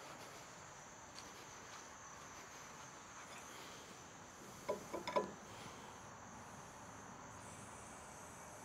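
Insects chirring steadily in a high, thin drone. About five seconds in, a quick cluster of short squeaks stands out above it.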